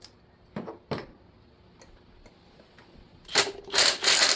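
A ratchet wrench on an extension and magnetic swivel spark plug socket: two light clicks as the socket is slid down onto the spark plug, then, a little after three seconds in, loud ratchet strokes as the plug is loosened.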